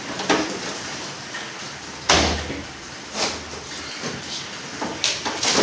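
Hands rubbing and pressing on the plastic-film-wrapped front panel of a Gree split air conditioner's wall-mounted indoor unit: a handful of short rustling swishes, the loudest, about two seconds in, with a dull thump.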